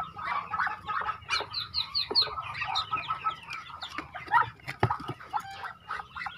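Newly hatched Muscovy ducklings peeping, a dense run of short high chirps, with a few knocks from the wooden nest box as they are handled.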